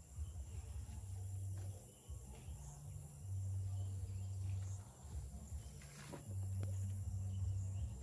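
A person blowing long, hard breaths onto smouldering kindling to coax a struggling fire into flame, heard as low whooshing rushes of about a second and a half each, three or four in a row with short pauses between.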